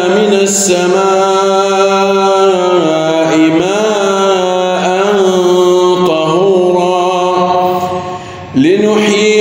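A man reciting the Quran in melodic tajweed style, holding long drawn-out notes with ornamented turns in pitch. The voice breaks off briefly about eight seconds in and comes back on a rising note.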